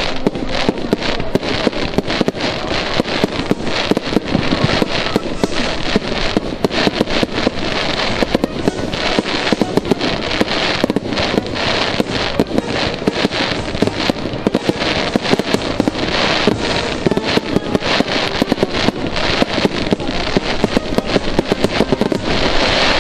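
Fireworks display: aerial shells launching and bursting in rapid, unbroken succession, a dense string of bangs and crackles.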